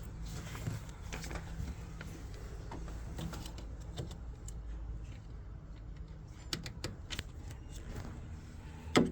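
Scattered light clicks and taps of parts being handled, with a louder knock just before the end, over a steady low hum.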